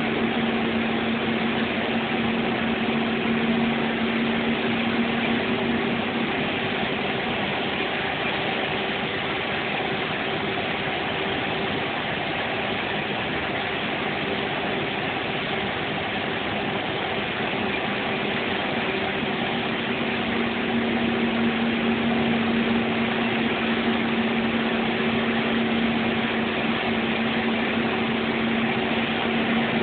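Bus engine running at road speed, heard from inside the cab, a steady engine hum over road noise. The hum weakens about a quarter of the way in and comes back stronger about two-thirds of the way through.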